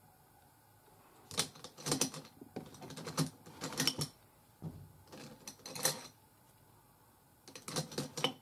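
Small hard plastic makeup items clicking and clattering as they are handled, in three bursts of rapid clicks.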